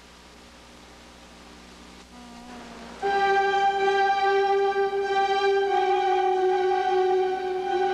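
Background music: faint at first, then about three seconds in it comes in loud with long held high notes that change pitch once or twice.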